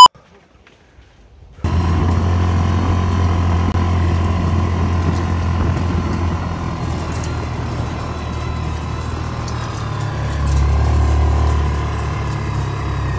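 Off-road vehicle engine running steadily, starting about a second and a half in. Its low note deepens and swells briefly about ten seconds in.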